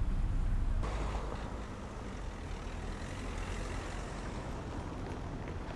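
Steady outdoor noise dominated by the low rumble of motor vehicle engines. The sound changes abruptly about a second in, then continues at a slightly lower level.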